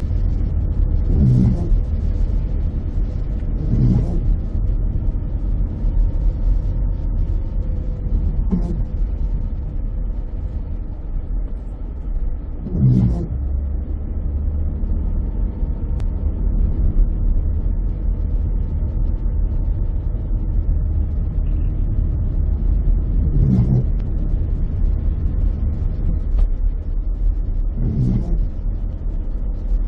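Car cabin noise while driving on a rain-soaked road: a steady low rumble of tyres and engine, with a handful of short dull thumps at irregular intervals.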